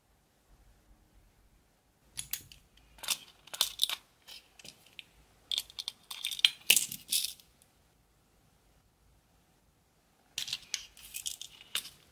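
Metal tweezers clicking and rattling among small rhinestones, nail parts and a silver chain in a clear plastic compartment case, in three bursts of quick clicks.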